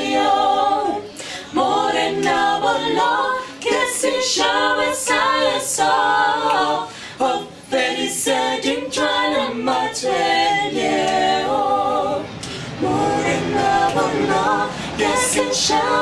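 Small mixed choir of men and women singing a cappella in harmony, in phrases broken by brief pauses for breath.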